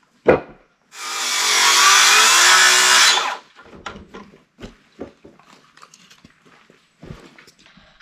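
A power tool runs under load on wood for about two and a half seconds, its motor pitch wavering, then stops. It is followed by scattered light knocks and clicks of handling.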